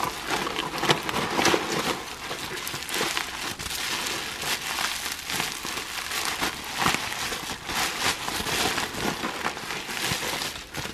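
Plastic bubble wrap crinkling and rustling in the hands as it is pulled off a glass tumbler, with many small crackles throughout.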